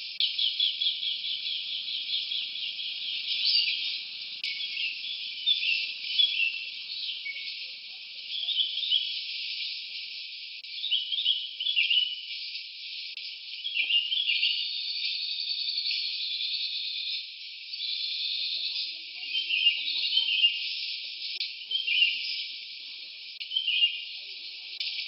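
Forest ambience of small birds chirping and trilling, with insects buzzing at times, all high-pitched and thin with no low end.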